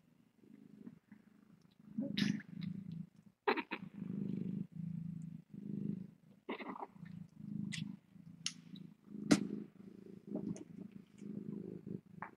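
A cat purring in repeated breath-by-breath pulses, with a few brief sharp sounds over it.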